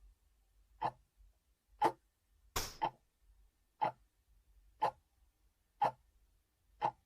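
Clock ticking sound effect, a sharp tick about once a second, with a short hissing burst about two and a half seconds in.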